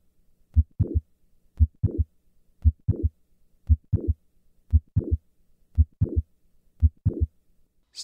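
Heart sounds of mitral valve prolapse: each beat has a low first heart sound, a mid-systolic click, then a late systolic murmur running into the second heart sound, repeating about once a second. The patient is squatting, which raises left ventricular volume and moves the click later in systole.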